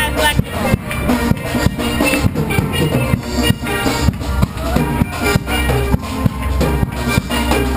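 Steel pan music over a steady drum beat.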